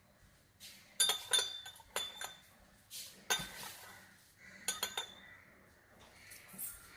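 Metal spoon clinking against a cup: several sharp clinks with brief ringing, in short clusters, as honey is stirred into the herbal decoction.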